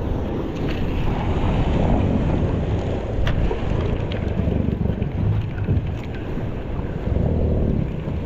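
Wind buffeting the microphone over the wash of choppy sea around a small open boat, with a single sharp click about three seconds in.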